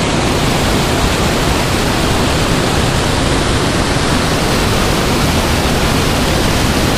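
Steady, loud rush of white water churning out of a spillway close by.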